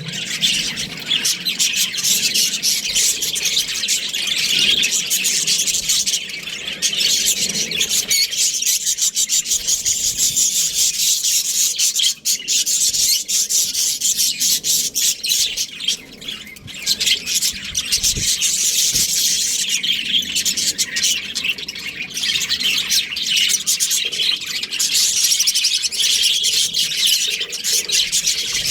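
Budgerigars chirping and chattering almost without a break, with a couple of brief lulls.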